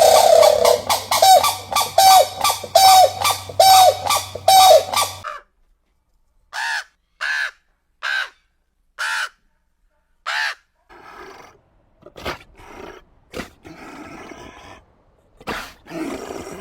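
Bird calls: a fast run of about eight loud, harsh caw-like calls, then five short separate calls spaced a second or so apart, then softer scratchy sounds.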